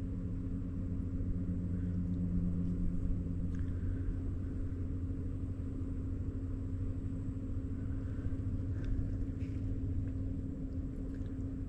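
A steady low motor rumble with a constant hum.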